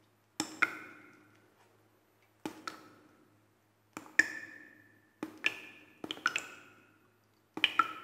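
Water drops falling in a cave, dripping into water. About a dozen plinks come mostly in close pairs every second or so, each with a short pitched ring that fades into an echo.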